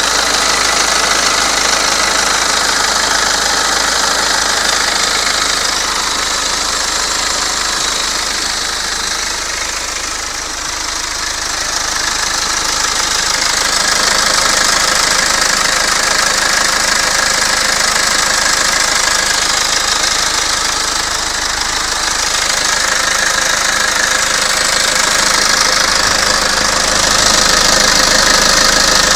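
BMW E90 320d's 2.0-litre four-cylinder common-rail turbodiesel (130 kW) idling steadily, heard close up in the engine bay.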